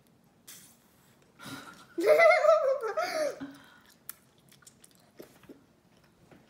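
A girl chewing bubble gum with faint, scattered mouth clicks, and about two seconds in a loud, high-pitched giggle that wavers in pitch for about a second and a half.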